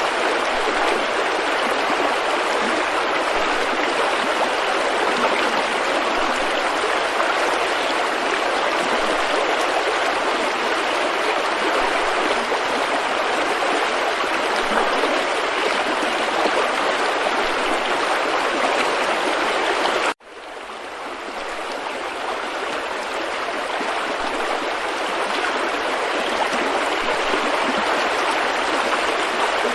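River rapids rushing steadily. About twenty seconds in, the sound cuts out for an instant and then swells back up over a few seconds.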